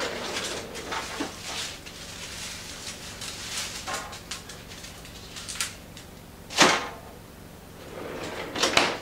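Refrigerator freezer drawer pulled open and a plastic produce bag rustled as a bunch of celery is taken out; about two-thirds of the way through a single sharp crack, the loudest sound, as a celery stalk is snapped off the bunch. Near the end the drawer slides back shut.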